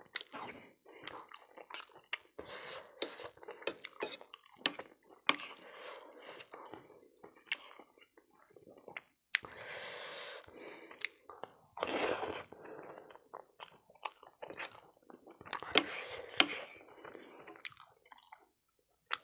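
Close-up eating sounds of spicy pork keema noodles: wet chewing and slurping, with a fork and spoon clicking and scraping on a ceramic plate again and again. Louder stretches of slurping come about ten, twelve and sixteen seconds in.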